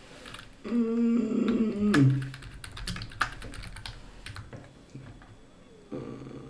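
Typing on a computer keyboard: a quick run of key clicks from about two seconds in, entering a game search. Just before the typing comes a drawn-out pitched hum lasting about a second, which is the loudest sound.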